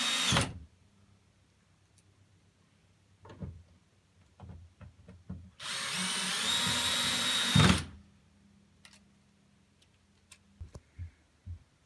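Power drill-driver running screws into a TV's back cover plate: one run ends about half a second in, and a second run of about two seconds comes in the middle, its whine rising and then holding steady. Light clicks and taps of handling come between and after the runs.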